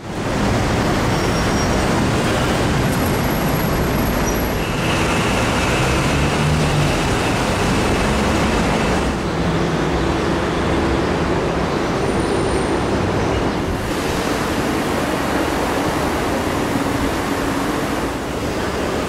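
Steady ambient noise of road traffic and a station building's surroundings, with no clear single event; its character changes several times between shots.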